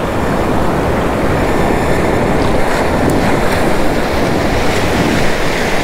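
Waves washing and breaking in shallow surf, a steady rushing, with wind rumbling on the microphone.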